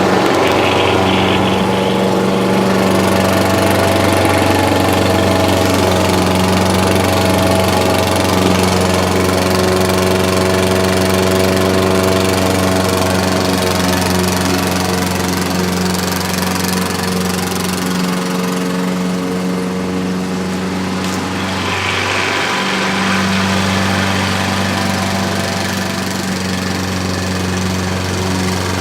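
Gas-powered walk-behind lawn mower engine running steadily while mowing. Its note wavers briefly about two-thirds of the way through, then settles back.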